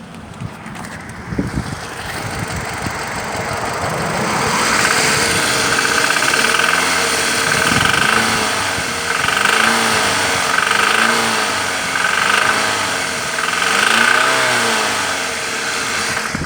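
Toyota 1AZ-FE 2.0-litre inline-four engine running and revved in repeated short blips, about six times, each rising and falling in pitch. It is posted as the sound of an engine knock.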